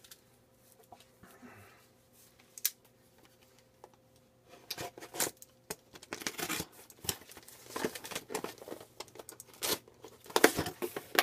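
A small cardboard box being handled, with irregular crinkling and scraping rustles and a few sharp knocks. It starts with one click and becomes a busy run of rustling from about halfway on.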